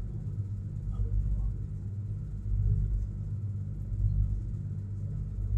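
Soviet-built hydrofoil's diesel engines running at cruising speed: a steady low drone heard from inside the passenger cabin.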